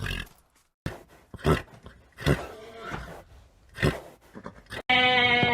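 An animal giving a series of short, harsh calls about a second apart. Near the end a bleat starts and is held past the end.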